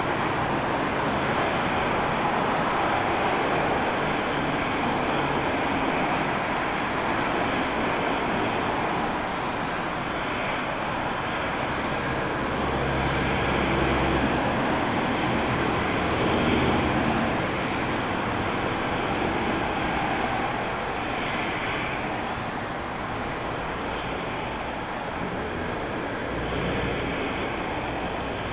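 Twin turbofan engines of an Embraer E-Jet airliner on final approach, a steady jet rumble and roar that swells as the plane passes about halfway through and then eases off as it lands.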